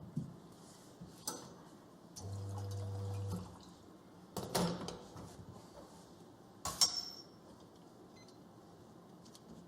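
Espresso gear being handled: several sharp clicks and knocks of metal and plastic parts, with a steady electric hum lasting about a second, about a quarter of the way in.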